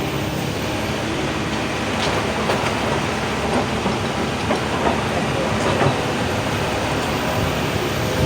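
Excavator running under load, a steady dense engine and machinery noise with scattered sharp knocks and clatter.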